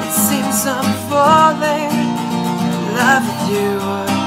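Background music: a strummed acoustic guitar song, with a voice singing a drawn-out, wavering line partway through.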